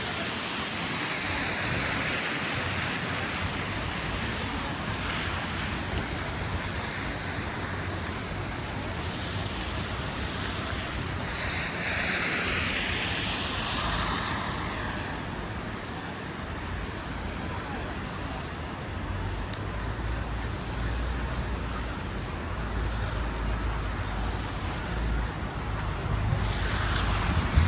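Street traffic on a slushy avenue: steady tyre hiss, with vehicles swelling past about two seconds in, around twelve seconds and near the end. A low engine rumble builds in the last third.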